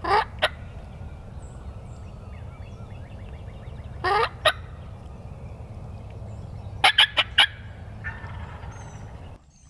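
Wild turkey gobbler gobbling hard, three loud gobbles about three seconds apart, the first two with a high shrieking sweep and the last a quick rattle of notes. A steady low rumble runs underneath.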